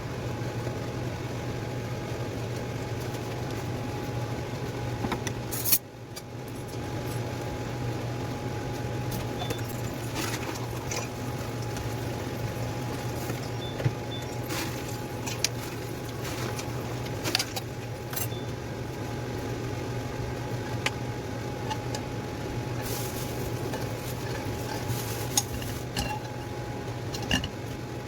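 Steady low mechanical hum, like a kitchen range-hood fan, with occasional light clinks of utensils against cookware.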